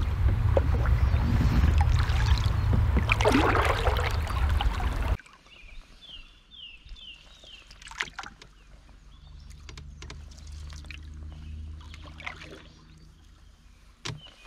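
Canoe paddling on calm water: paddle strokes with splashes and drips. For about the first five seconds a loud low rumble and hiss covers it. Then it drops sharply to quiet water sounds with single splashes, and a bird gives a quick run of four chirps.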